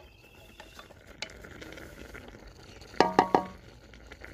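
A utensil knocked three times in quick succession against an aluminium karahi about three seconds in, each knock a metallic clink that rings briefly.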